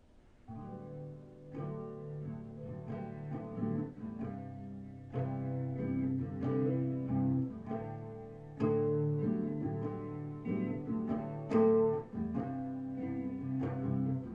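Solo guitar intro: chords picked and struck with ringing notes, starting about half a second in.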